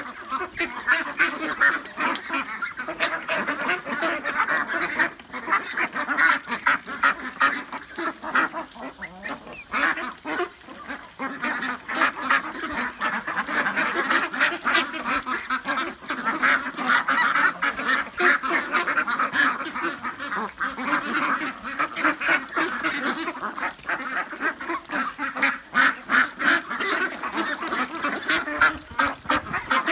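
A flock of 40-day-old ducks quacking without pause, many short calls overlapping into a continuous chatter.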